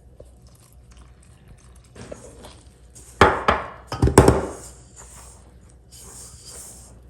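Two loud knocks about a second apart, each ringing briefly, with faint handling noises around them during kitchen work.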